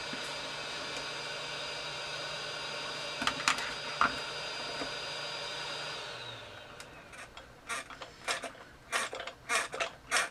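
Heat gun blowing with a steady whine, switched off about six seconds in and winding down with a falling pitch. Light clicks and scrapes follow as a small screwdriver pries at the heat-softened glue holding a plastic post.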